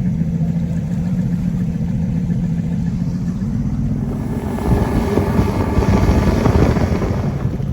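Boat motor running with a steady low hum. From about halfway, a louder rush of wind and water noise builds up over it.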